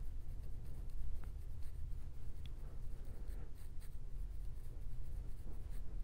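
Teeth of a fine-tooth plastic comb scratching across the scalp through short, tightly coiled hair, loosening dandruff flakes, in short, faint strokes.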